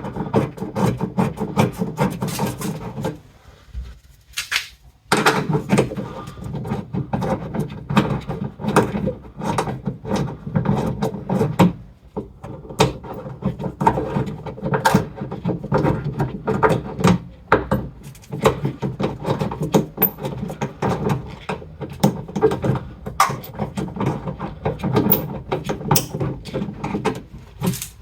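Ratchet wrench clicking in long rapid runs as the wiper motor's mounting bolts are turned in, with a few short pauses.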